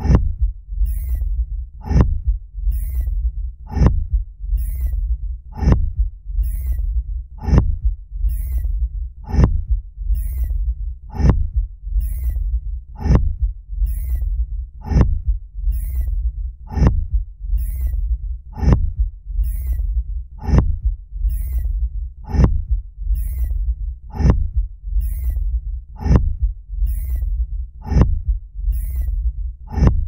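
Thumper sound effect from Dune: a steady rhythm of deep thumps, about one a second, over a continuous low rumble. Each thump is followed by a brief high crackle. The thumper is the Fremen device that pounds the sand to call a sandworm.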